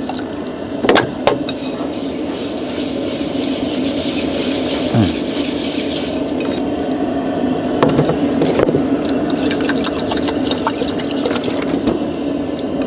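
Water poured from a plastic bottle into a rice cooker's inner pot of dry rice, then, from about six seconds in, a hand swishing and rubbing the rice in the water to wash it, over a steady low hum.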